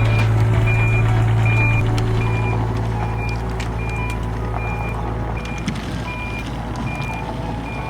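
Backup alarm beeping steadily, a little over one beep a second, over the steady low running of a heavy machine's engine.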